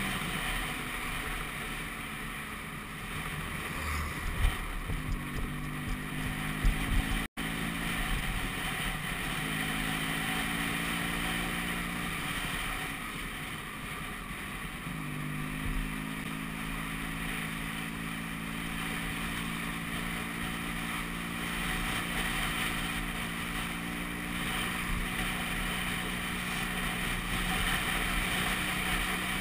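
Vespa PX200's single-cylinder two-stroke engine running on the move, its note dipping and rising a couple of times before holding steady, with wind noise on the microphone. There are a few sharp knocks several seconds in, and the sound cuts out for an instant about seven seconds in.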